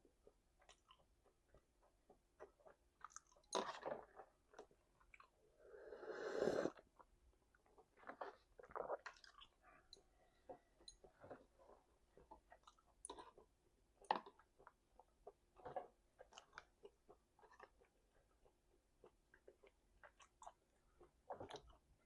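A person chewing and biting food close to the microphone: irregular wet clicks and crunches, with a longer sound that swells and cuts off about six seconds in.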